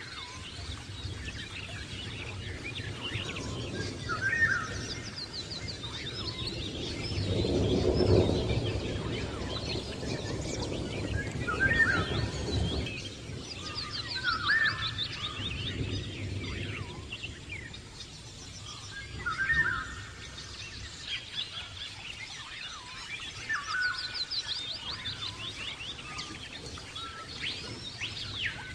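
Lovebirds chirping in short, shrill calls that come again every few seconds. A low rumble of background noise swells and fades around the middle.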